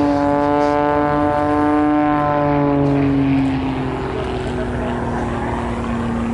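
Single-engine aerobatic propeller plane in a smoke-trailing dive, its engine and propeller giving a strong droning note that slowly drops in pitch and eases off slightly after about three seconds.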